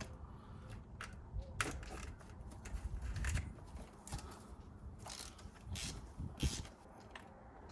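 Irregular clicks, scrapes and light rattles of hand tools working a spark plug out of a 2006 Mustang GT engine, the plug from the misfiring cylinder.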